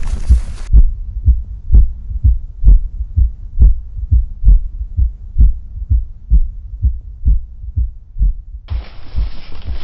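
Heartbeat sound effect: evenly spaced low thumps, about two a second, over a faint steady hum. Near the end a hiss of background sound comes back in beneath it.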